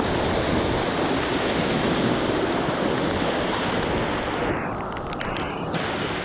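Rushing whitewater of the Soča river in high water, a loud, steady wash of water noise close to the microphone. About four and a half seconds in, the hiss thins and a few short clicks come through.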